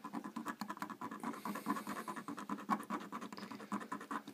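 Needle file rasping on a white metal miniature in rapid short strokes, filing away a leftover casting tag.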